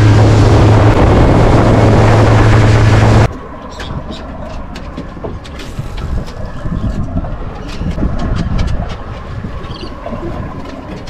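Fishing boat's engine running at speed under wind and water noise, with a strong low hum; it cuts off suddenly about three seconds in. A much quieter low rumble follows, with scattered clicks and knocks.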